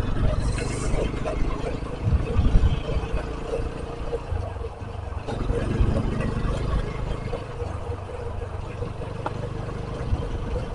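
Motorcycle engine running at road speed, with wind buffeting the microphone in an uneven low rumble and a steady faint engine tone.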